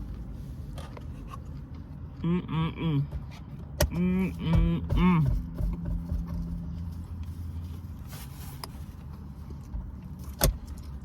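A woman eating with her mouth full, making short voiced 'mmm' sounds of enjoyment twice, around two and four seconds in, over a steady low hum inside a car. Two sharp clicks, one near four seconds in and one near the end.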